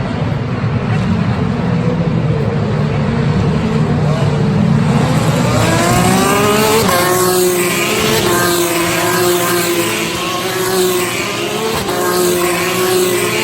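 Racing cars accelerating hard, several engines rising in pitch together through repeated upshifts after a low steady drone in the first few seconds.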